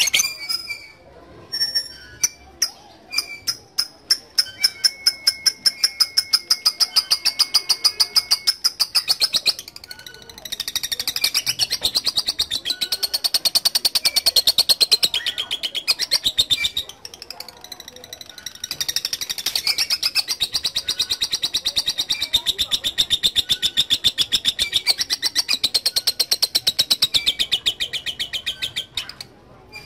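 Lovebird in long 'ngekek' chatter: rapid strings of sharp, high notes repeated many times a second, in three long runs of several seconds each with short breaks between. This sustained trill is the 'ngekek panjang' that lovebird keepers train for.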